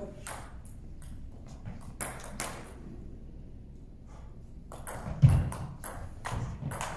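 Table tennis ball clicking off the bats and the table: a few separate clicks, then a quick run of hits from about five seconds in as the rally starts. A loud low thump comes just after the rally begins.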